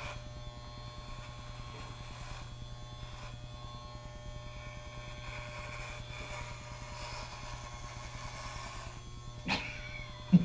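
Electric hair clippers running with a steady buzz as they shave hair close to the scalp in a buzz cut, with one short knock near the end.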